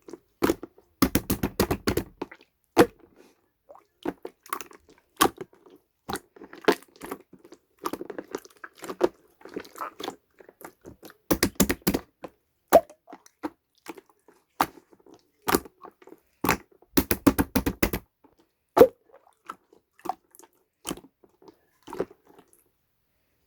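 Close, irregular crunching and crackling clicks, with three quick runs of dense crackles about a second long.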